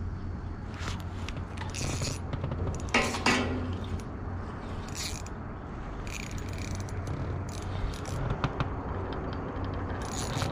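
Spinning reel being handled: small clicks, rattles and scrapes, over a steady low hum. A brief rushing sound about three seconds in is the loudest event.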